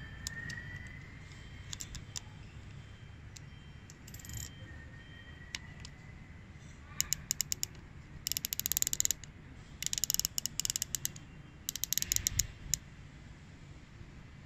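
Elevation turret of a Discovery ED 4-16x50 SF rifle scope being turned by hand, its detents clicking. A few single clicks come first, then four quick runs of clicks in the second half.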